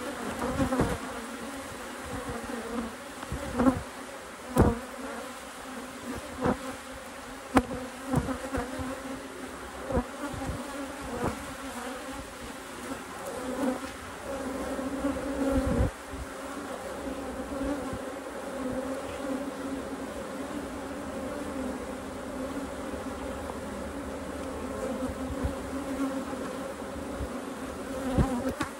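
Honeybees buzzing steadily, a low hum with a higher overtone, with scattered sharp knocks, most of them in the first half.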